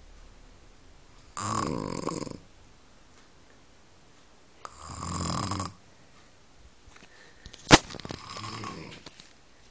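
An elderly woman snoring in her sleep: three snores about three and a half seconds apart, the last one fainter. A single sharp click comes just before the third snore.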